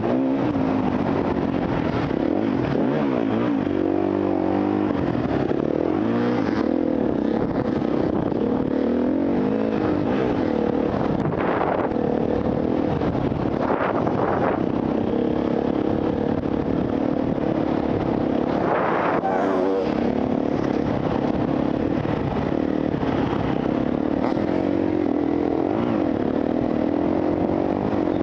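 Off-road enduro motorcycle engine running under way, its pitch rising and falling with the throttle, with a few brief louder surges.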